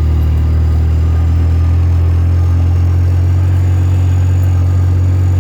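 ATV engine running steadily at low revs, a constant low-pitched hum.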